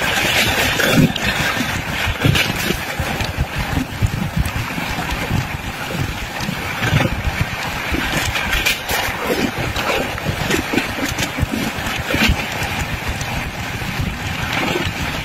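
Running noise of a fast passenger train, heard at an open window: wheels rumbling and clattering irregularly over the rails, with wind rushing across the microphone.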